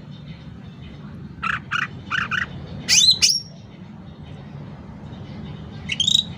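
Cucak ranting calling: four quick chirps about a second and a half in, then two loud sweeping calls at about three seconds and another near the end, over a steady low hum.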